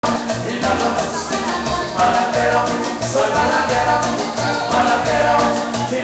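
Live Latin dance band playing with a singer, over a steady beat with bass and shaker-type percussion, from a stage with keyboard and accordion, recorded on a phone.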